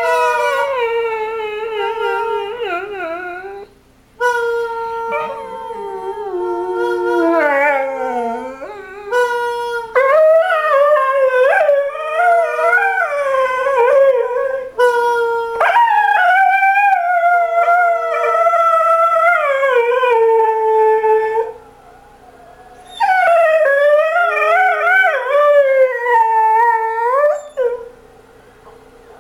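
A dog howling in long, wavering calls that slide up and down in pitch, one after another with short breaks, over a steady held note.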